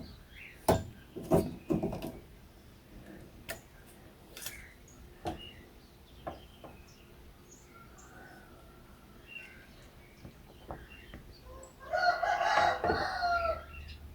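Sharp clicks and knocks in the first two seconds as the car radio's metal casing is worked open. Near the end a rooster crows once, loudly, for about a second and a half.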